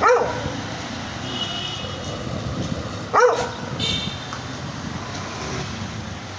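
A dog barking angrily: two single sharp barks about three seconds apart, over steady background noise.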